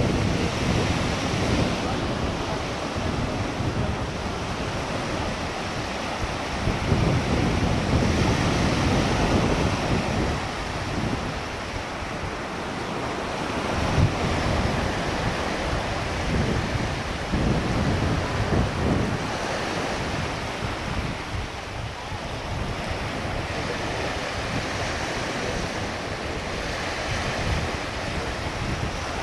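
Ocean surf washing in and out in rising and falling swells, with wind buffeting the microphone in low rumbles.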